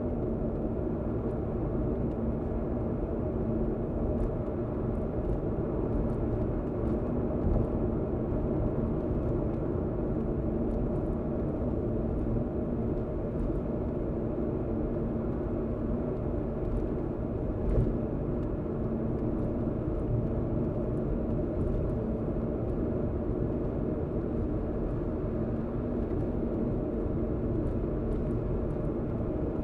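Steady road and engine noise from inside a moving car's cabin: a low rumble with a steady hum. There is a single short bump about 18 seconds in.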